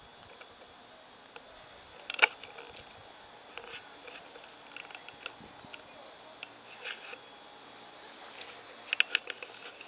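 Scattered sharp clicks and light scuffs over a faint steady hiss: one loud click about two seconds in, a few softer ones after it, and a quick cluster of clicks near the end.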